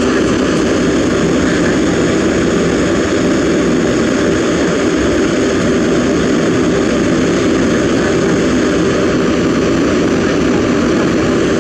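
Kobelco SK200 hydraulic excavator's diesel engine running steadily, a loud even drone with no revving up or down.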